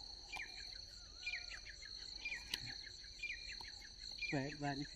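Steady high-pitched drone of insects, with short chirps repeating about once a second above it. A man's voice speaks briefly near the end.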